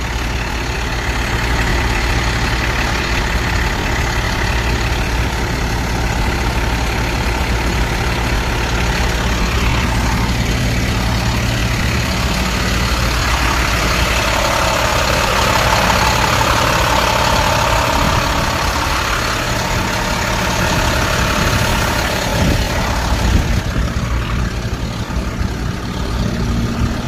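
Diesel engine of a rear-loading garbage truck idling steadily. For a few seconds in the middle it is heard up close by the cab and exhaust stack and sounds louder and fuller.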